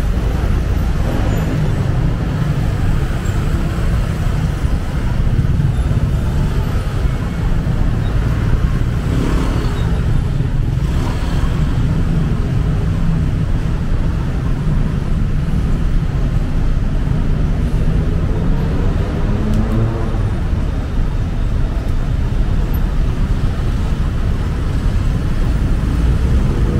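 Motorcycle taxi riding through city traffic: a steady, loud low rumble of engine, wind and road noise, with other traffic around it.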